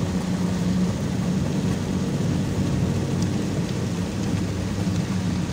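Steady engine drone and tyre noise of a vehicle driving on a wet dirt road, heard from inside the cabin, with heavy rain hissing on the windshield and body.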